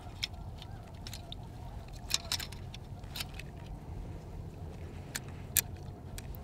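Scattered faint metal clicks and light water sounds as hands handle a steel foothold trap and its bracket on a stake in shallow water, over a low steady rumble.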